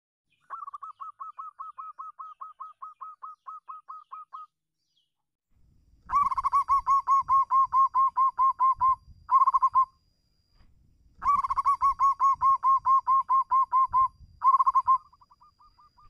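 Zebra dove (perkutut) cooing in phrases of rapid staccato coos, about four to five a second. A quieter phrase comes first, then two loud phrases, each ending in a short burst, and fainter coos near the end. It is the dove's calling song, used to call out a rival.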